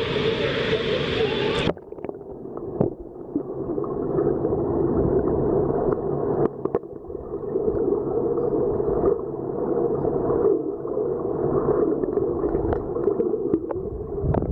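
Pool water heard from below the surface: a muffled, steady low churning with scattered small clicks and knocks. About two seconds in the bright din of the indoor pool cuts off as the microphone goes under, and it returns near the end as it surfaces.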